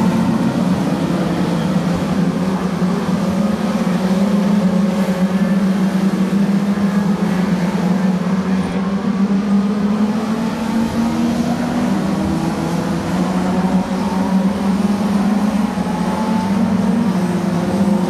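Engines of a pack of oval-track race cars running together as they lap the circuit: a steady, blended engine drone that shifts slightly in pitch as cars go by.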